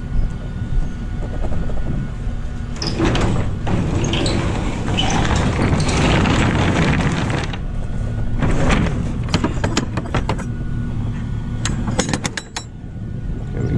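A vehicle engine running steadily at idle, with footsteps crunching on gravel that come as a run of short crunches in the second half.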